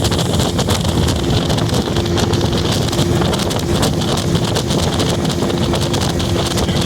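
Old Evinrude 85 two-stroke outboard motor running steadily with the boat under way, under heavy wind noise on the microphone. A steady low tone sounds from about a second in until near the end.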